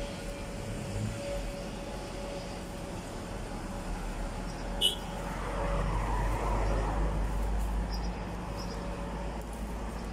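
Street traffic noise with a steady hum, swelling as a vehicle passes about six seconds in, and one short sharp click just before that.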